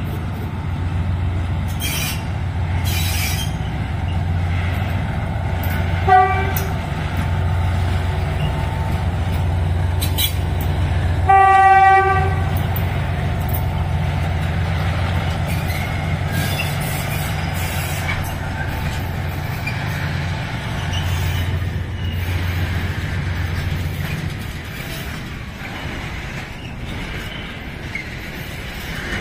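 Diesel shunting locomotive passing with its engine running steadily as it hauls container wagons, sounding its horn twice: a short toot about six seconds in and a longer, louder blast about eleven seconds in. Near the end the engine sound drops away as the wagons roll by.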